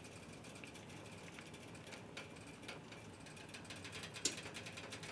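Faint, rapid, irregular clicking from a kitchen oven as it preheats. A soft knock about four seconds in as a short rib is set into the cast-iron Dutch oven.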